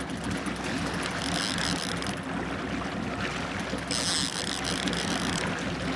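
Fishing reel ratcheting in two short spells while a hooked muskie is played on the rod, over the steady low drone of the trolling boat's engine.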